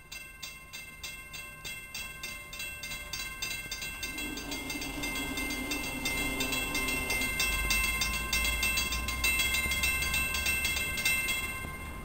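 Grade-crossing warning bell ringing with quick, even strikes, starting suddenly and stopping shortly before the end: the crossing has been triggered by an approaching train. From about four seconds in, the approaching train's low rumble grows underneath.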